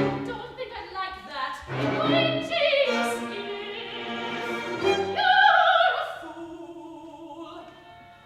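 Soprano singing an operatic aria with instrumental accompaniment. About five seconds in she holds a loud, high note with vibrato, then drops to a quieter, lower held note that fades.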